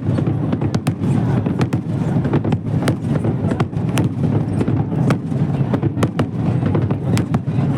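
Aerial fireworks bursting: many sharp crackling pops in quick, irregular succession over a steady low rumble.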